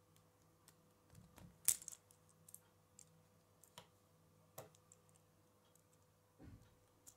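Small plastic K'nex connectors and rods clicking and snapping as they are fitted together by hand. The clicks are scattered, with the sharpest a little under two seconds in, and there are two soft low knocks of parts being handled.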